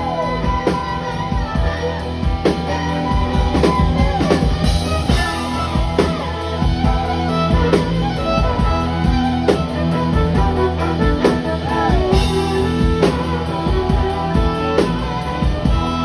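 Fiddle playing a lead line over a live rock band with drum kit and electric guitar, sliding down in pitch several times.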